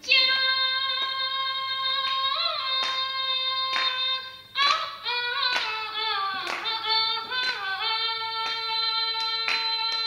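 A woman singing into a handheld microphone, holding long sustained notes, with sharp claps sounding now and then through the song.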